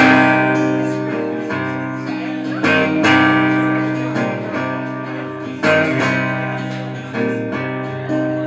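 Acoustic guitar strummed in an instrumental passage, each chord ringing out and slowly dying away before the next strum.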